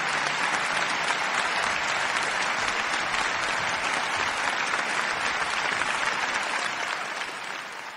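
Crowd applauding steadily, a dense clatter of many hands clapping, fading out near the end.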